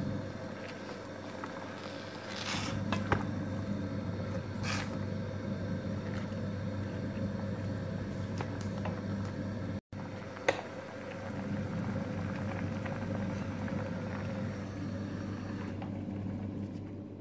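Gas burner hissing steadily under a pot of simmering chard, with two sharp knocks. The hiss cuts out near the end as the burner knob is turned off.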